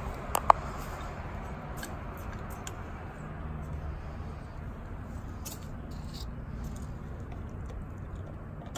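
Hand trowel digging and scraping in sandy soil and dry leaf mulch, with two sharp clicks about half a second in, then faint scratchy scrapes over a low, steady background.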